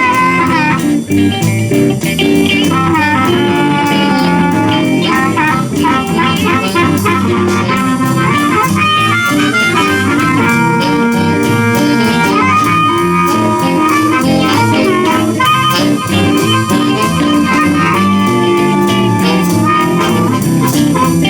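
Live blues band playing an instrumental break: blues harmonica taking the lead with held, bending notes over electric guitar, bass and drums.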